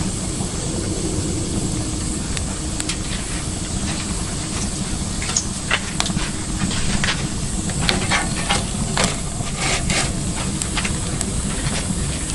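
Wood fire burning, a steady low rumble with scattered crackles and snaps, thickest in the middle of the stretch.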